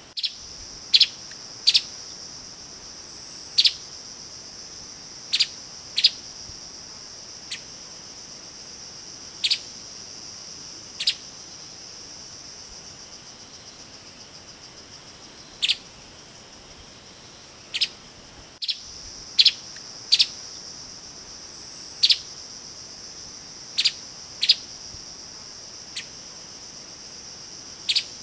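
Streaked spiderhunter giving short, sharp single call notes at irregular intervals, sometimes in quick pairs, over a steady high-pitched insect drone.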